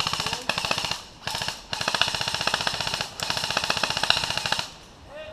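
Airsoft rifle firing on full auto in four long bursts of rapid, evenly spaced shots, with short gaps between them.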